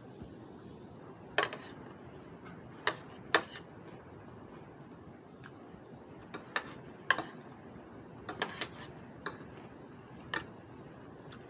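Metal spoon and fork clinking against a plate as food is cut and scooped, about ten sharp clinks at irregular intervals.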